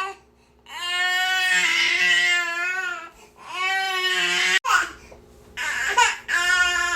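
Infant crying in long, wavering wails, followed by shorter cries. A sharp click partway through.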